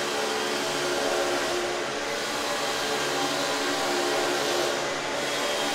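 Concrete-floor grooving machine, a grinder that cuts small grooves into smooth concrete slats to roughen them, running steadily: a constant tone over a grinding hiss.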